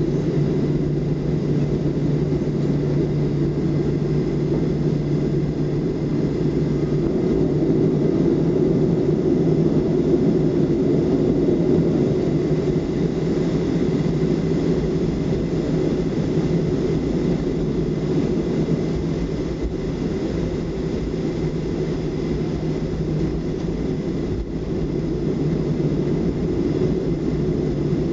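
Jet airliner cabin noise heard from inside a Southwest Airlines Boeing 737 rolling and taxiing after landing: a steady rumble from the engines and airframe, with a faint steady whine above it.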